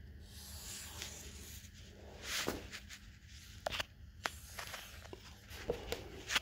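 Quiet handling noises while the cut-out tire sidewall is laid on the tire to be traced: a scraping swish about halfway through, then scattered light clicks and knocks.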